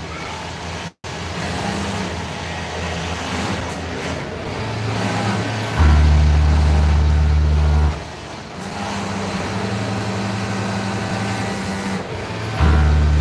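Industrial sewing machine running in spurts as fabric is stitched: a low, steady hum that starts and stops, loudest from about six to eight seconds in and again near the end, over a constant din of other machines.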